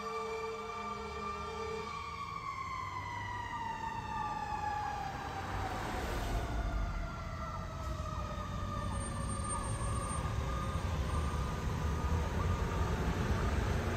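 Fire engine's mechanical siren winding down, its pitch held steady at first and then falling slowly from about two seconds in. A lower steady tone cuts off at about the same point, and a low engine and traffic rumble grows in the second half.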